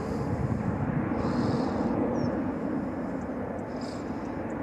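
Twin GE90-115B turbofans of a Boeing 777-300ER at takeoff thrust during the takeoff roll, a steady deep rumble that eases a little toward the end.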